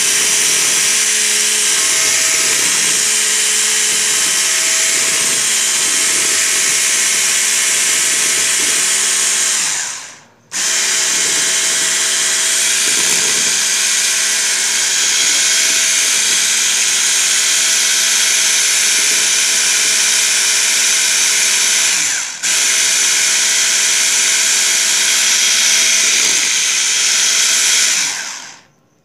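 Electric hand mixer running steadily at speed, its twin wire beaters whisking egg whites with oil and sugar in a glass bowl. The motor breaks off briefly twice, then winds down near the end.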